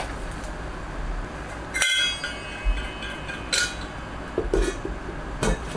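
Stainless steel lid of a KUYURI compact smoker being set back onto its pot. A sharp, ringing metallic clink comes about two seconds in, followed by several lighter clinks and taps.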